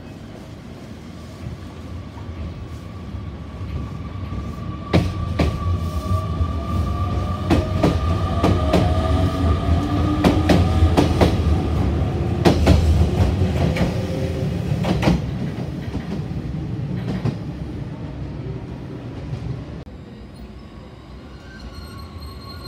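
Electric train moving along the platform: a low rumble that builds and fades, with a run of sharp wheel clicks over the rail joints and a motor whine rising in pitch as it speeds up, loudest in the middle. A steady high tone runs underneath.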